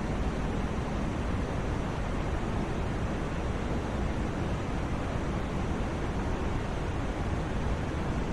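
Continuous white noise for sleep: an even, unbroken rushing hiss that never changes. It is weighted toward the low end, so it sounds deep and soft rather than bright.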